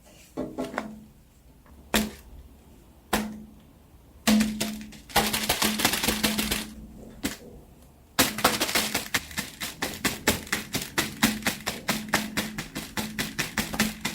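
Fidget toys being handled: a few separate sharp plastic taps, a stretch of denser rustling and clicking, then from about eight seconds in a quick run of clicks and taps, about three to four a second.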